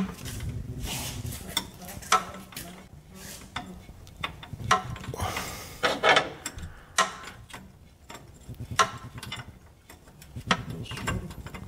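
Irregular metallic clicks, knocks and scrapes of a box-end wrench working a new transmission output speed sensor tight into the transmission case.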